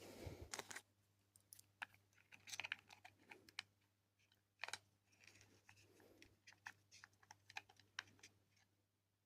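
Faint, irregular clicks and taps of small parts being handled as servo motors and spacer blocks are fitted into a robot's casing.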